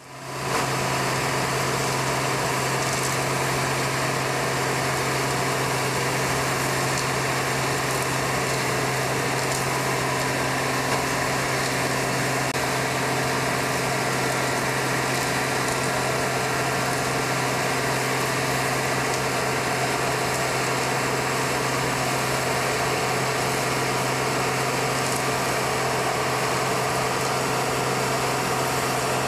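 Steady machinery drone of a running dry-batch concrete plant: a constant low hum under an even mechanical noise, fading in at the very start.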